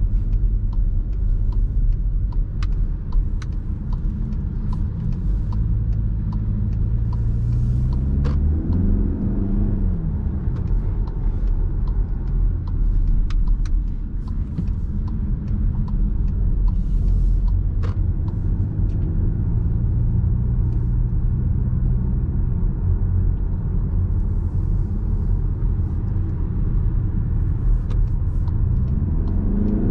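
A 2020 Skoda Superb's 2.0 diesel engine and steady road rumble while driving. The engine note rises as the car accelerates about a third of the way in, falls back at a gearshift, and rises again near the end.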